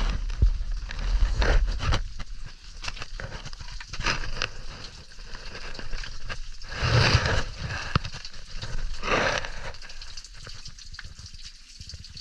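Water dripping and splattering from a cave ceiling onto wet rock. Louder bursts of rustling and scuffing come every few seconds, from someone moving over the rock.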